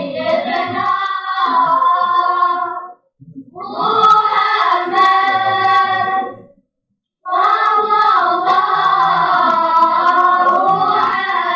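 Children's vocal group singing together in three long phrases, with a brief break about three seconds in and a longer pause past the middle.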